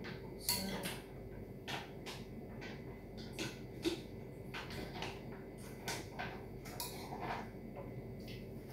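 Irregular light clicks and knocks of kitchenware and cabinet fittings being handled, a dozen or so scattered through, over a faint steady hum.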